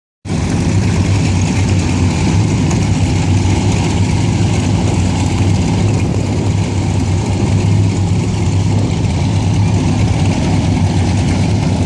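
Offshore race boat engines idling steadily: a loud, even low drone with a noisy hiss above it.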